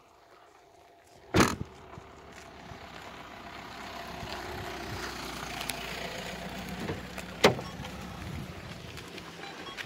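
A Renault Mégane hatchback's tailgate slams shut about a second in. Steady vehicle noise follows, and a second sharp knock near the end as the driver's door is opened.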